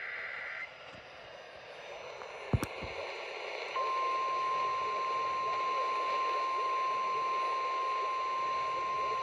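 NOAA Weather Radio alert over a receiver with static: the tail of a SAME digital header burst, a warbling data screech, ends about half a second in. Then comes hiss with a single click, and about four seconds in the steady 1050 Hz warning alarm tone starts and holds.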